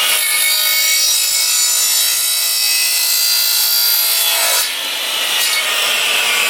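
Saw cutting through a vent pipe at the marked line, a continuous rasping cut that eases briefly about five seconds in and then resumes.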